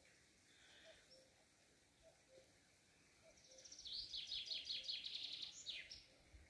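A songbird sings one rapid phrase of high notes, starting about four seconds in and lasting about two seconds, ending in a quick falling note. Faint, short, low notes from another distant bird repeat throughout.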